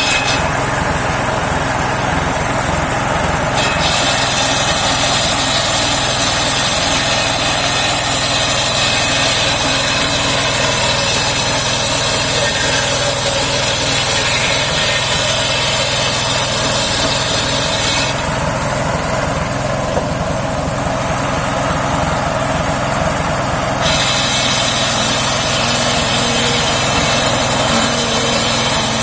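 Engine-driven homemade circular sawmill running steadily. A higher, harsher cutting sound joins it from about 4 to 18 seconds in, and again from about 24 seconds on, as the blade cuts through saman (rain tree) wood.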